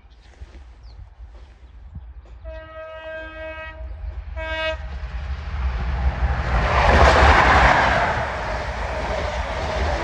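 A passing train's horn sounds two blasts on one note, a long one about two and a half seconds in and a short one right after, answering the watchers' request for a toot. Then the train rushes past close by, its rumble and rail noise building to a peak about seven seconds in and staying loud.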